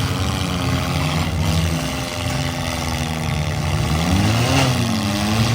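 Several demolition derby cars' engines running and revving at once, their pitches rising and falling against each other.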